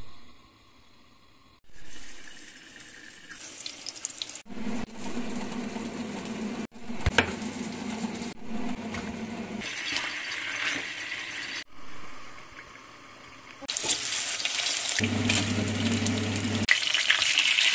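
A run of short kitchen sounds joined by abrupt cuts. It ends with chicken pieces frying in oil in a pan, a steady sizzle over a low hum.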